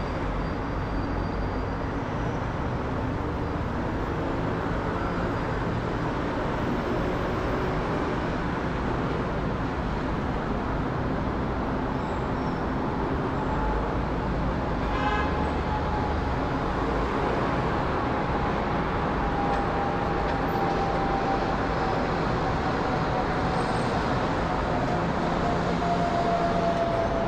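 Boeing 787-9 jet airliner passing overhead: a steady jet-engine rush with a thin whistle that comes in about halfway through and slowly falls in pitch as the aircraft goes past. It grows slightly louder near the end.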